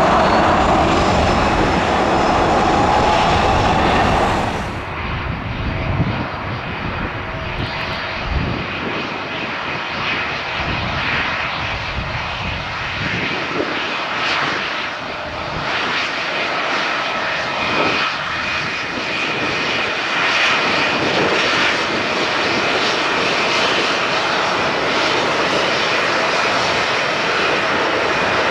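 Airliner engines running: a steady rushing noise with a thin high whine. About five seconds in, a louder, deeper drone stops abruptly and the sound carries on somewhat quieter, swelling a little later on.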